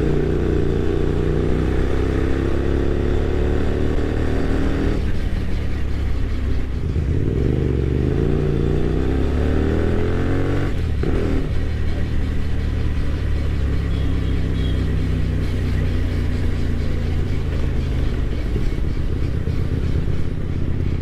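Hyosung GT250R motorcycle's V-twin engine with a modified aftermarket exhaust, under way at low speed. Its note rises twice as the bike accelerates, each rise breaking off as it shifts gear, then it runs steadily.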